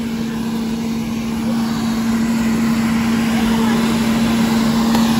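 Electric blower of an inflatable bounce house running: a steady motor hum over rushing air, growing slowly louder.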